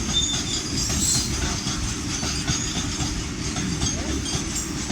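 Freight train wagons rolling past: a steady heavy rumble with rapid clatter of wheels over the rail joints and faint high wheel squeal.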